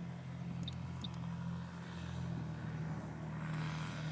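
Nitro glow engine of a large RC F4U Corsair model airplane in flight, a steady drone.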